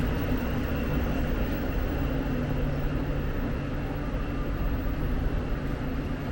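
Steady running noise of a vehicle, a low hum under an even rushing sound.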